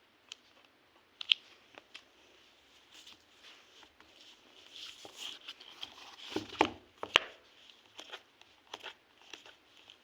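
Handling noises of a tablet and its packaging: scattered sharp clicks and taps with some rustling. A cluster of louder knocks comes about six to seven seconds in.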